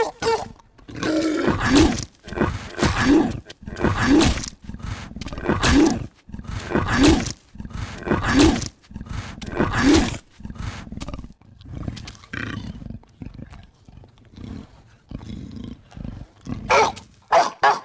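Rough roaring calls, one about every second and a half, each rising and then falling in pitch. Fainter broken calls follow, and there are a few louder ones near the end.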